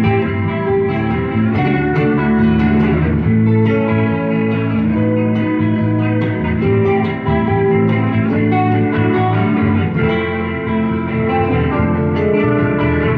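Instrumental guitar trio playing live: several guitars together, with long held notes over a steady low bass line and plucked chords.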